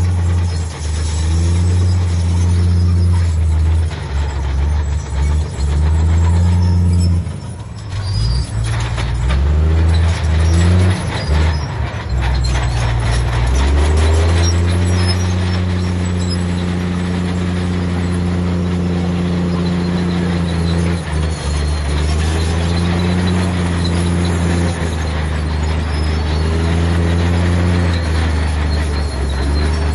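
Heavy diesel earthmoving machinery working close by, its engine running under load and revving up and down several times. There is a stretch of rattling and clanking about a third of the way in.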